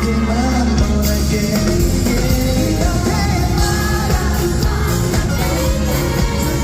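Live rock band playing a song with drums, bass and guitar under a male lead vocal singing.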